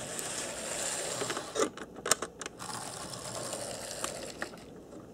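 AHM HO-scale model trolley running on its track: a steady whir from its small electric motor and gearing, with a few sharp clicks about two seconds in.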